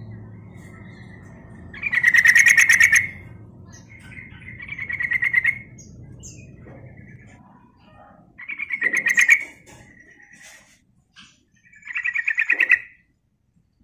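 Yellow-vented bulbul singing: four short bursts of rapid chattering notes, each about a second long and a few seconds apart.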